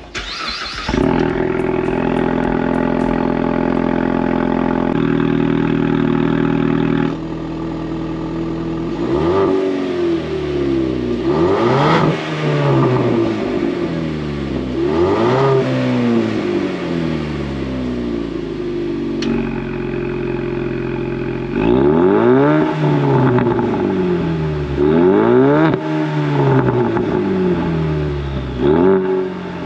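2019 Ford Mustang EcoBoost's 2.3-litre turbocharged four-cylinder heard at its active-valve quad exhaust in normal mode. It starts up about half a second in and idles high, drops to a lower idle at around seven seconds, then is revved again and again, each rev rising and falling in pitch.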